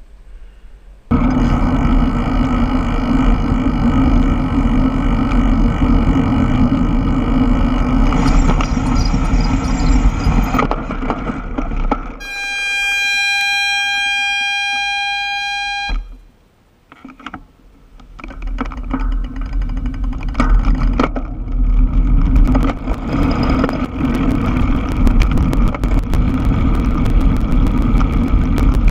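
Bicycle brakes squealing as they are applied: one steady, high-pitched squeal lasting about four seconds that cuts off sharply. Before and after it, loud road and wind rumble from a camera mounted on the bike's rear rack.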